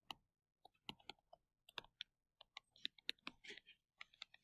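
Faint, irregular clicks and taps, several a second, of a stylus pen tip on a tablet or touchscreen while handwriting.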